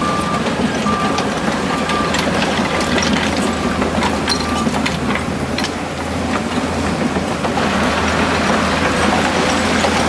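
Heavy construction machine's diesel engine running steadily, with scattered clanks and knocks. A reversing alarm beeps at a steady pace through the first half and stops about halfway through.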